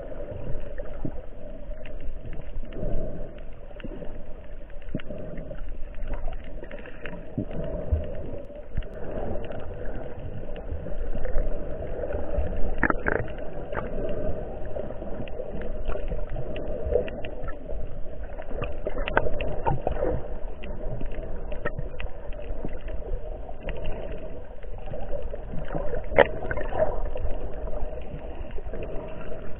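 Muffled underwater sound of water moving around a submerged action camera's waterproof housing, a steady rush with scattered small clicks and knocks throughout.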